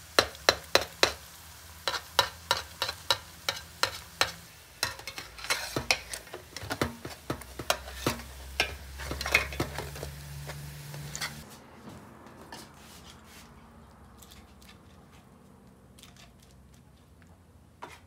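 Sopes sizzling as they fry in oil in an enamelware pan, with a metal spatula repeatedly clicking and scraping against the pan, about two or three clicks a second. About eleven seconds in the clatter and sizzle die down, leaving a faint sound with a few light clicks.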